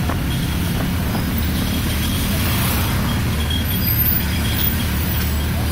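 Boda boda motorcycle taxi's engine running steadily under way, with road and traffic noise around it.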